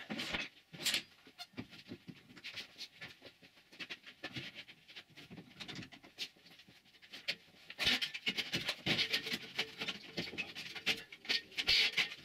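Wood being handled on a plywood sheet laid across trestles: a quick, dense run of scrapes, taps and knocks, with sharper knocks near the start and again around eight and twelve seconds in.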